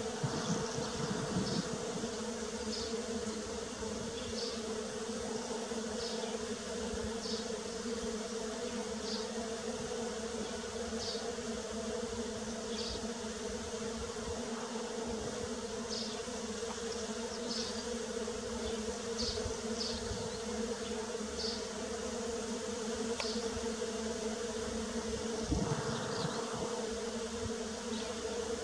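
Bees buzzing in a steady, low drone, with a brief louder swell near the end as the buzz comes closer. Short high chirps recur about every second or two over it.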